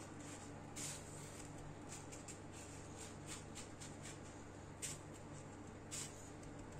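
Faint rustling and crunching of raw white sesame seeds as a stick of soft potato dough is rolled and pressed into them on a plate, a little louder about a second in and twice near the end, over a steady low hum.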